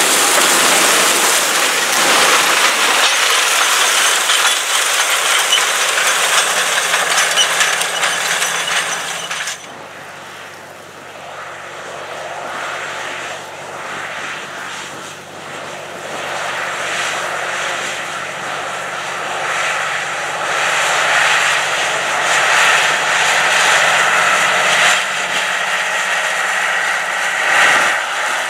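Close-up hiss and rattle of a disk ripper's disk gangs slicing through corn stalks and soil. About ten seconds in it drops suddenly to the steady drone of the Ford 1156's turbocharged six-cylinder diesel pulling the ripper under load, which grows louder toward the end.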